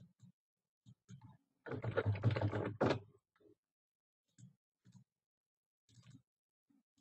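Scattered clicks of a computer mouse and keyboard, with a louder, denser run of clatter lasting about a second, beginning a little under two seconds in.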